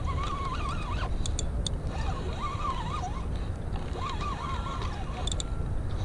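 Spinning reel being cranked in stretches while a hooked fish is played, its gears giving a wavering whine that stops and starts. A steady low rumble runs underneath.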